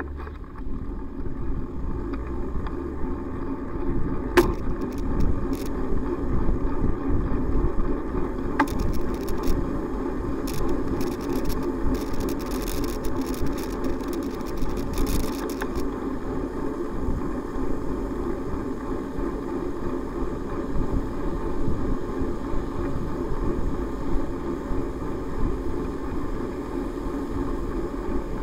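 Steady rumble of road and wind noise from a camera on a moving bicycle, tyres on a wet road, with a DAF truck following close behind. A spell of sharp clicks and rattles comes through the middle.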